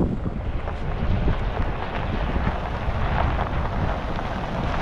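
Vehicle on the move, with a low rumble and wind buffeting the microphone.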